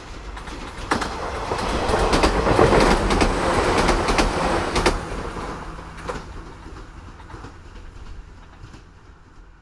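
New York City subway train running past, its wheels clacking over the rail joints; the clatter builds to a peak about three seconds in and then fades away as it moves off.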